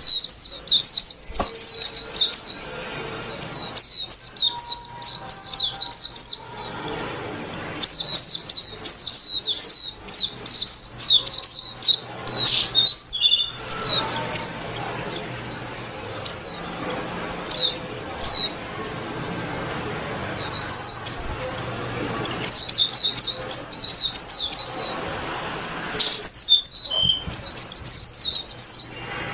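White-eye (vành khuyên) singing: bursts of rapid, high, quick chirps lasting a few seconds each, separated by short pauses.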